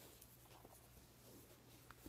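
Near silence: faint rustling of a hand rubbing a small dog's fur close to the microphone, with one soft click near the end.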